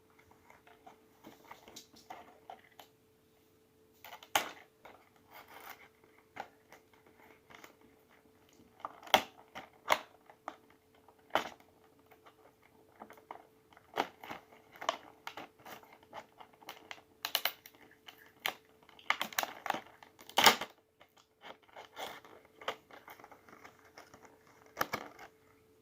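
Toy packaging being handled and carefully picked open: scattered taps, clicks, scratches and short tearing sounds, busiest in the second half, over a faint steady hum.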